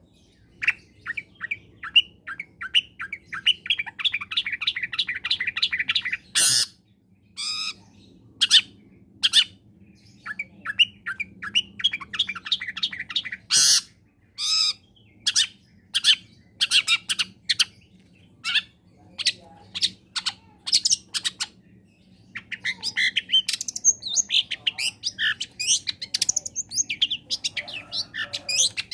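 Long-tailed shrike (cendet) singing: quick runs of chirps broken by a few loud harsh calls, then a fast, varied run of song near the end.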